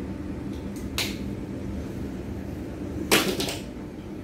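Handling sounds at a cooking table over a steady low hum: a short sharp click about a second in, then a louder rattle lasting about half a second near three seconds in, as a plastic cooking-oil bottle and table items are handled.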